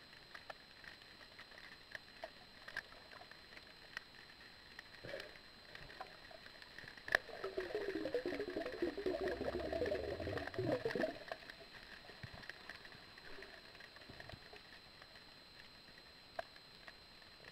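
Water sounds at an underwater camera: scattered faint clicks, then about seven seconds in a sharp knock followed by some four seconds of bubbling gurgle that fades out.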